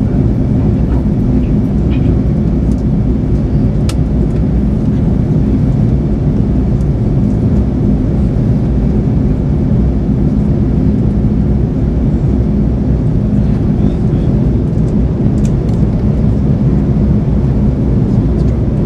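Steady in-flight cabin drone of a Boeing 787-9 heard from a window seat beside the engine: a deep, even rumble of GEnx-1B engine and airflow noise. A faint tick comes about four seconds in.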